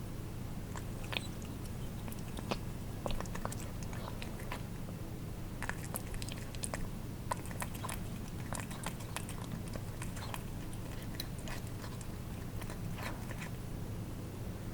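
Cats eating wet food: wet chewing and tongue-lapping clicks, irregular and a few each second, over a steady low hum.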